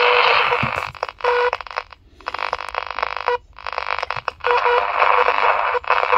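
Mikki 2 pocket medium-wave transistor radio's small speaker giving loud static hiss over a steady tone, cutting out and back in abruptly with crackles several times as the tuning wheel is turned. The owner puts the scratchy tuning down to a variable tuning capacitor that needs cleaning.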